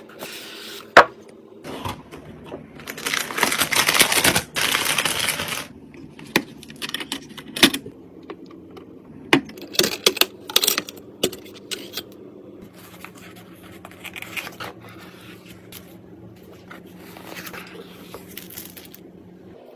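Hands handling computer parts and packaging: scattered clicks, taps and scrapes, a sharp snap about a second in, and a stretch of rustling or tearing of packaging from about 3 to 5.5 seconds in.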